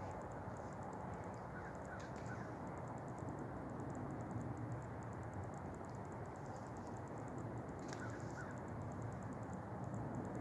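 Quiet outdoor background: a steady low rumble with fast, high-pitched ticking trills and a few faint bird calls. Two soft clicks fall about six seconds apart.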